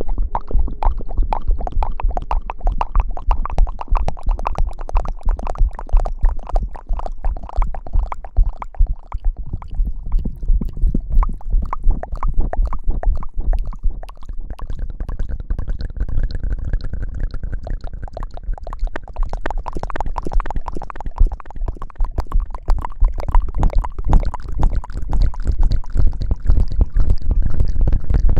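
ASMR hair-washing sounds: fingers rubbing and lathering right against the microphone, a dense wet crackle with a heavy low rumble, easing off a little midway before picking up again.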